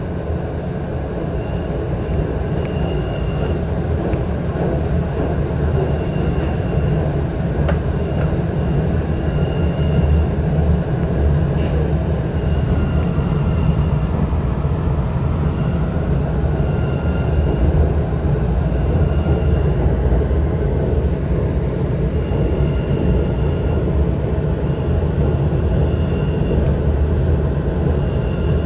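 New MBTA Red Line subway car running through the tunnel, heard from inside: a steady low rumble of wheels on rail, with short high tones coming back every few seconds.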